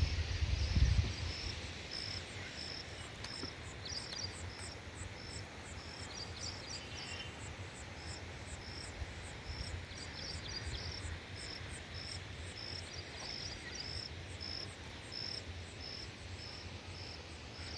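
An insect chirping in a steady rhythm, about two short high chirps a second, over a low rumble, with a few other brief high calls in the middle.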